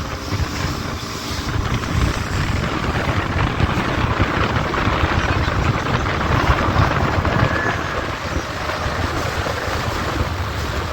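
Wind buffeting the microphone over the steady rushing noise of a boat under way on the sea.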